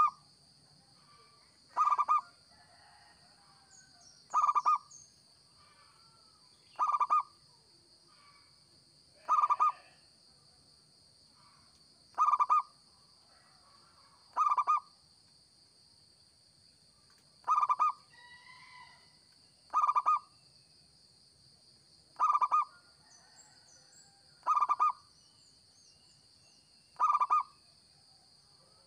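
Zebra dove (perkutut) cooing: a short burst of rapid staccato coos repeated about every two and a half seconds, twelve times over.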